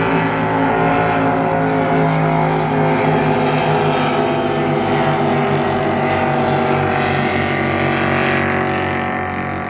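Racing powerboat engines running at speed in a steady, loud drone.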